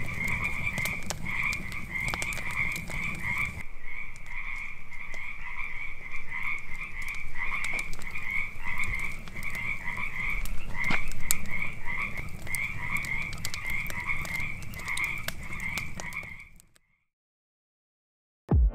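A chorus of frogs calling, a steady run of repeated croaks about twice a second, with the crackle and pop of a wood campfire. It cuts off suddenly near the end.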